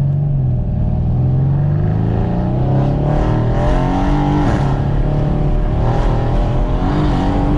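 Mercedes-AMG C63 S twin-turbo V8 with upgraded turbos under hard acceleration: the engine note climbs steadily, drops sharply at an upshift about halfway through, then climbs again.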